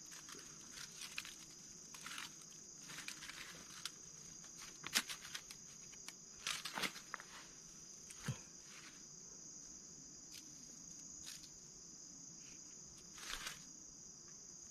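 Faint, steady, high-pitched insect trilling, with scattered light clicks and rustles from hands working on the snare; the louder clicks come around the middle.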